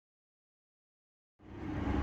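Dead silence, then about one and a half seconds in a steady low rumble of vehicle noise fades in.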